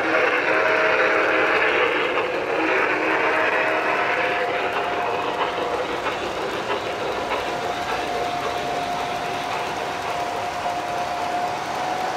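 O-gauge model steam locomotive and its freight cars rolling by on three-rail track: steady running noise of wheels and motor, with a hiss for the first four seconds or so and a thin steady hum from about halfway through.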